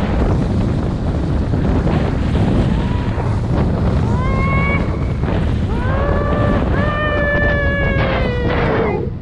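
Strong wind buffeting the microphone with a steady roar. From about three seconds in, a person calls out several times in long, high-pitched calls; the last is held for about three seconds, sliding slightly down before it stops near the end.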